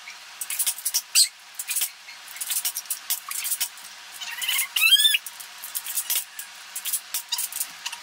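BoomCo toy blasters firing Smart Stick darts at wall targets: a run of sharp clicks and snaps from the shots and the darts striking. About five seconds in there is one brief, high, wavering squeal.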